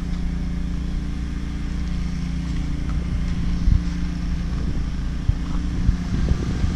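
Gasoline portable generator of about 7000 running watts running steadily, a constant low engine hum. A few soft knocks come in the second half.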